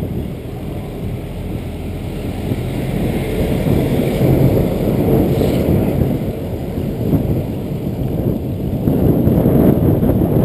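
Wind buffeting the microphone of a camera on a moving bicycle, a loud, choppy low rumble mixed with tyre noise on the concrete path, growing louder a few seconds in.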